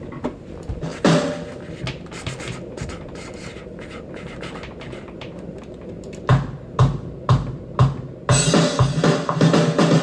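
Programmed metal drum track playing back through studio monitors: light scattered hits over a low bed at first, then four heavy hits about half a second apart, and a little after eight seconds in, the full kit comes in with dense drumming.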